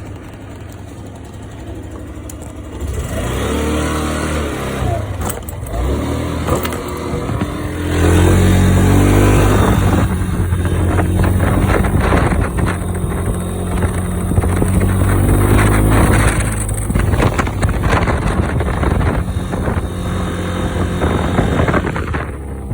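Yamaha Majesty 125 scooter's single-cylinder four-stroke engine running, its speed rising and falling several times. It carries an abnormal noise that the owner likens to a plastic part vibrating and suspects comes from around the CVT weight rollers. Wind on the microphone partly covers it.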